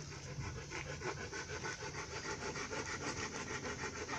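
A rapid, even rasping scrape, about seven strokes a second.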